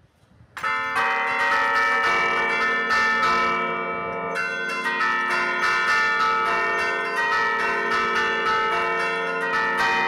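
Church bells played by hand from a wooden baton keyboard (Bergamasque 'suono a tastiera'), the clappers struck in quick succession so the tones ring and overlap in a continuous melodic peal, heard close up from inside the belfry. The playing starts about half a second in.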